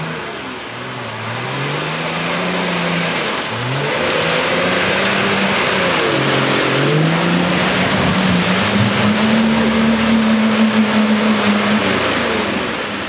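Off-road 4x4's engine revving hard as it churns through a deep muddy rut, rising and dropping several times and then held high before easing off near the end, with a hiss of mud and water thrown up by the tyres. It grows louder over the first few seconds as the vehicle comes closer.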